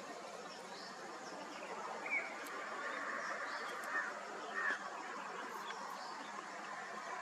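Wild birds calling with short chirps and whistles, a few louder ones about two, four and four and a half seconds in, over a steady background hiss.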